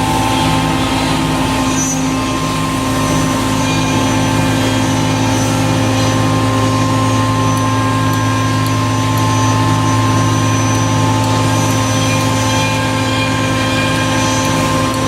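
CNC woodworking router running, giving a steady machine hum of several held tones with a fast low pulsing beneath.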